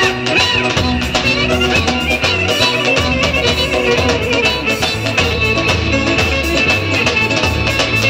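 Live Roman havası dance music: a clarinet leads a wavering melody over a steady drum beat.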